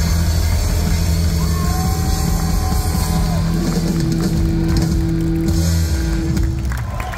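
Live hard rock band playing loud through a festival PA: distorted electric guitar, bass and drums holding sustained low notes that cut off near the end, as the song finishes.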